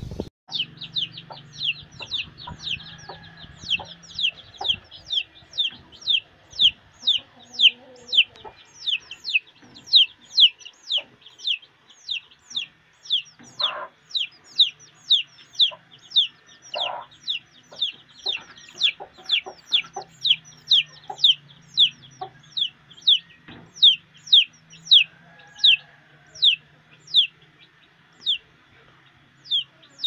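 Domestic chicks peeping continuously: short, high, downward-sliding peeps at about two a second. A few lower clucks from the mother hen come in about halfway through.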